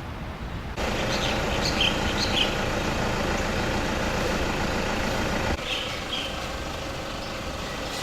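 A vehicle engine running steadily, with a few short bird chirps. The sound steps up abruptly about a second in and drops back a little after five seconds.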